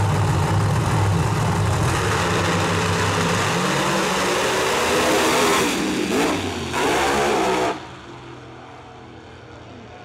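Two no-prep drag cars, one a nitrous-assisted Ford Probe, run at full throttle down the drag strip, engine pitch climbing through the pass. The loud engine noise cuts off abruptly about eight seconds in, leaving fainter engine sound from far down the track.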